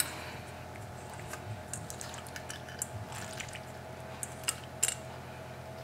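Cooked elbow macaroni being tipped from a bowl into a ceramic baking dish: faint wet slithering and plops with scattered light clicks, and two sharper clicks late on.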